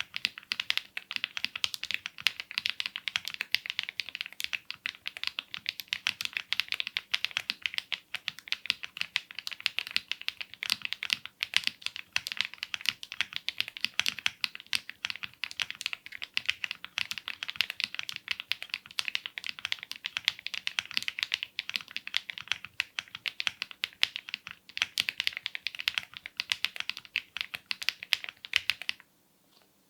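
Continuous fast typing on a mechanical keyboard with linear switches: a dense, steady stream of key clacks that cuts off suddenly near the end.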